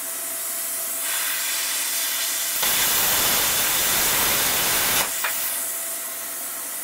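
Cut 50 ST plasma cutter cutting 2 mm stainless steel at 11 amps. Air starts hissing from the torch about a second in. The arc then cuts for about two and a half seconds with a much louder, rougher hiss and stops abruptly, leaving the air hissing on for a moment.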